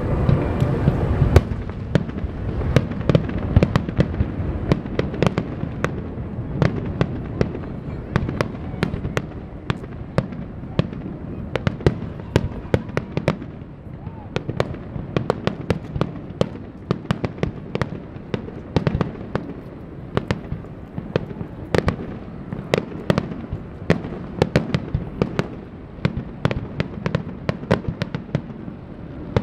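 Aerial firework shells bursting in a rapid barrage: dozens of sharp bangs, several a second and some much louder than others, over a low rumble.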